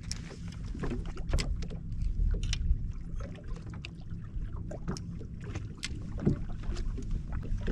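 Water slapping and knocking irregularly against the hull of a bass boat in a light chop, over a steady low rumble of wind on the microphone.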